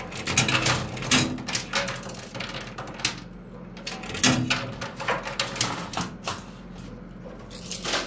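Coins clinking and clattering in a cascade coin pusher arcade machine as they drop onto the playfield and are shoved along. The clicks come in bunches, over a faint steady machine hum.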